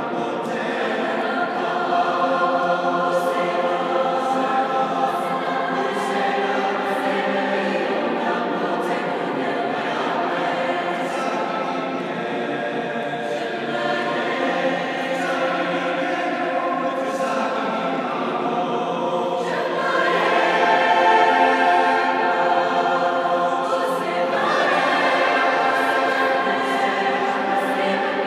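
Mixed high school choir singing in several parts, the sound swelling louder about two-thirds of the way through.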